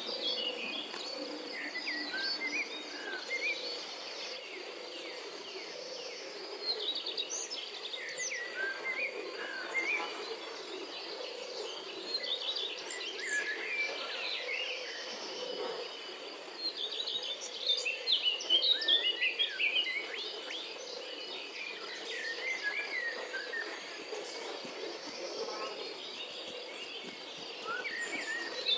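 Many birds chirping and calling over a steady, high insect trill.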